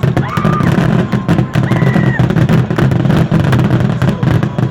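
Fireworks crackling and popping in a rapid, dense series, over a steady low rumble and people's voices.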